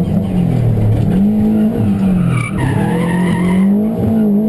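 Subaru rally car's flat-four engine, heard from inside the cabin, its revs rising and falling repeatedly while driven hard through bends. A brief high tyre squeal comes from about two and a half seconds in to nearly four seconds in.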